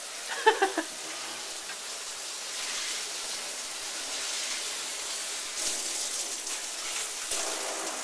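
Water spraying steadily from a newly installed rain shower head and falling into the tub. About half a second in, a brief sharp pitched sound rises above the spray.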